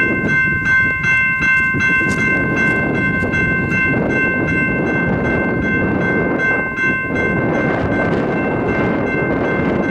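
Freight locomotive air horn sounding one long, steady chord of several notes, over the low rumble of the approaching train.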